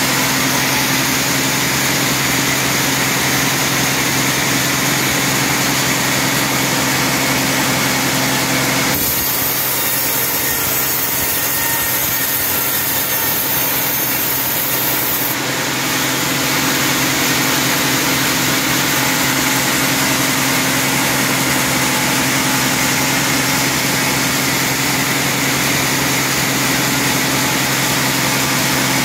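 Sawmill band saw cutting lengthwise through a teak log: a steady, loud machine hum with the blade hissing through the wood. Between about nine and fifteen seconds in, the hum drops away and a brighter high hiss takes over before the first sound returns.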